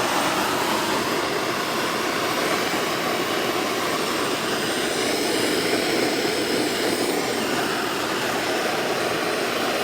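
Gas torch flame running with a steady, loud rushing hiss, heating a spring-steel bracket clamped in a vise to red heat.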